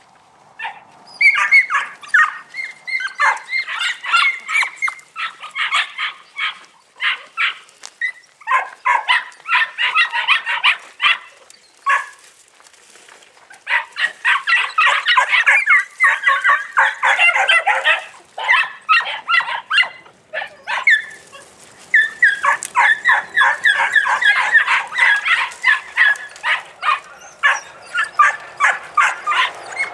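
Three-month-old podenco puppies yapping in quick high-pitched barks, several a second, as they run. The yapping starts about a second in and breaks off briefly twice, near the middle and about two-thirds of the way through.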